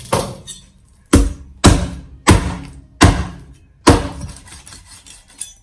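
Heavy kitchen knife chopping through a whole chicken: six heavy thunks with uneven gaps of well under a second to about a second, each with a short ring.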